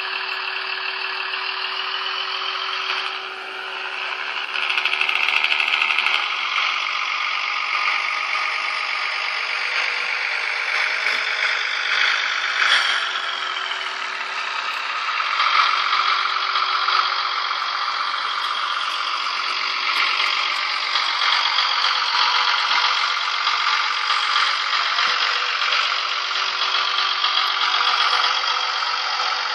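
Sound-decoder diesel engine sound of a Z-gauge VT 98 railbus model running continuously through a tiny loudspeaker, with no deep bass and a steady hum under an engine note that shifts as it runs.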